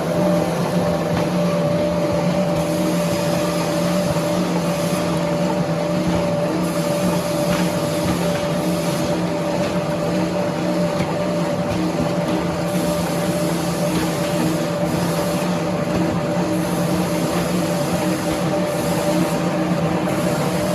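Heavy sawmill machinery running steadily, a constant mechanical hum under a wash of noise that holds unchanged throughout.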